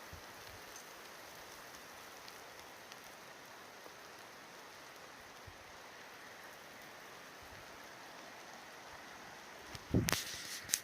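Steady rain pattering, a faint even hiss. Near the end, a loud knock followed by a few sharp clicks.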